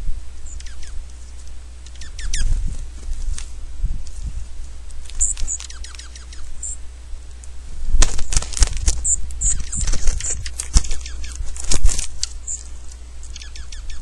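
Small birds at a feeder: an irregular clatter of taps and clicks, busiest from about eight to twelve seconds in, with brief high chirps scattered through, over a steady low rumble.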